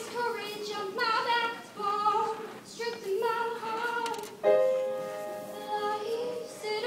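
Female voice singing a slow melody in phrases of held, gliding notes, each a second or two long.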